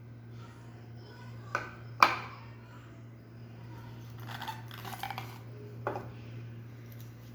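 Handling of wristwatches and their packaging: a few sharp clicks and taps of small hard objects, the loudest about two seconds in, with some rustling in the middle, over a steady low hum.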